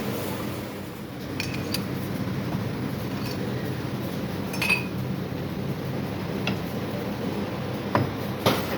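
Light metal clinks and taps, about six of them scattered over several seconds, the sharpest about halfway through and near the end, over a steady low mechanical hum.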